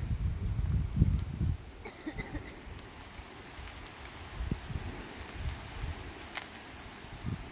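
Insects chirping in a steady, rapidly pulsing high trill, with low thumps and rumbles mostly in the first second or two.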